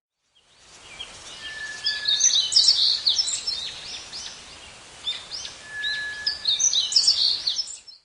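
Recorded birdsong played as a sunrise alarm clock's nature-sound alarm tone: quick chirps and trills over a steady background hiss, with a long whistled note twice, about four seconds apart. It fades in over the first second and cuts off suddenly near the end.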